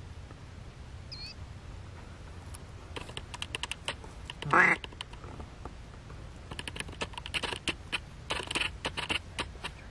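Duck quacking: one loud quack about halfway through, with runs of quick clicking notes before and after it.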